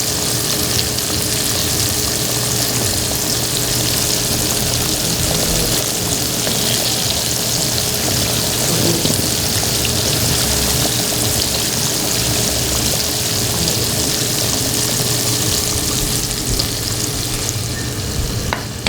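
Chicken pieces deep-frying in hot oil: a steady, even sizzle, with a faint hum underneath.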